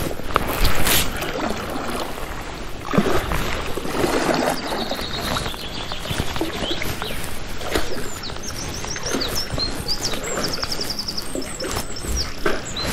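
Irregular rustling with scattered knocks, and small birds chirping from about five seconds in, with a quick run of repeated notes near the end.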